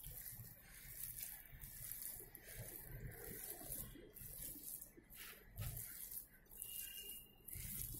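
Hand kneading a wet, loose wheat-flour dough in a glass bowl: faint squishing strokes repeating about once or twice a second.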